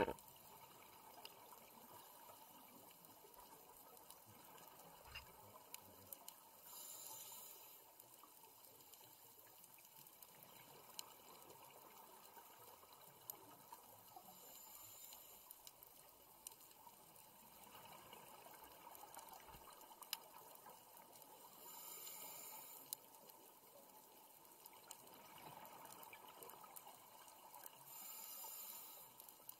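Faint underwater sound of a scuba diver breathing out through a regulator: four short hissing rushes of bubbles about every seven seconds, with scattered faint clicks in between.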